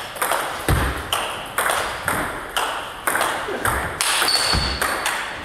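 Table tennis rally of topspin loops: the ball cracks off the rackets and clicks on the table in a quick alternating run, about one sharp click every half second. A short high squeak comes about four seconds in.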